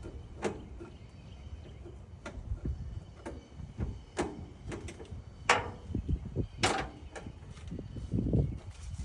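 Scattered knocks and clunks of parts and tools being handled during a truck teardown: about half a dozen sharp knocks at uneven intervals, the loudest about five and a half seconds in, over a low rumble that swells near the end.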